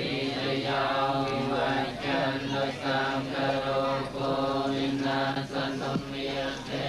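Khmer Buddhist monks chanting together in unison, low voices holding long, even notes in short phrases.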